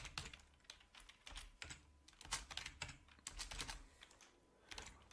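Typing on a computer keyboard: an irregular run of key clicks in quick clusters, with a brief pause a little after four seconds in.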